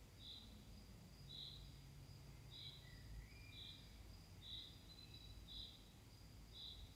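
Near silence: quiet room tone with a faint, high chirp repeating about once a second.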